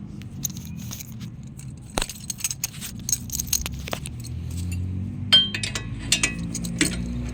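Metal hand tools clicking and clinking irregularly as the brake caliper bolts are tightened with a wrench, with a low hum growing louder about halfway through.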